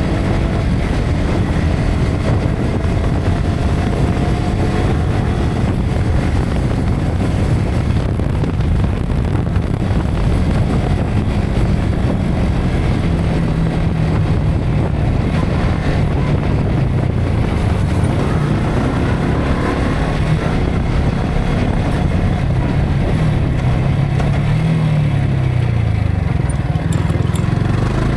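Yamaha R15 V3's single-cylinder engine running under way, its pitch rising and falling with the throttle, buried in heavy wind rush on an action camera's built-in microphone.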